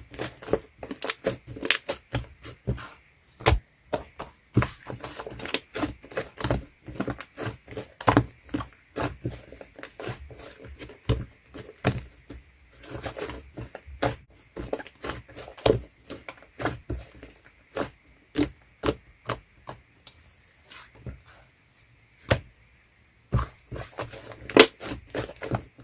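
Slime being pressed, poked and squished by hand, giving quick, irregular sharp clicks and pops, with a brief lull about three-quarters of the way through.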